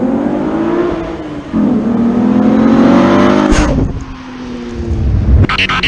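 2014 Camaro RS's 3.6-litre LFX V6 accelerating hard past, its engine note rising, dropping at a gear change about a second in, then rising again. A loud rush comes as it passes, about three and a half seconds in, and a lower, falling note follows as it drives away. A few sharp pops near the end.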